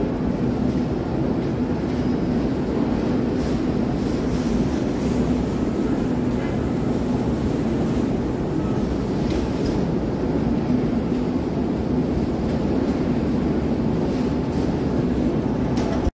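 Steady drone of warehouse conveyor machinery with a constant low hum, and a few light clicks and rattles from metal cage carts rolling along the floor track.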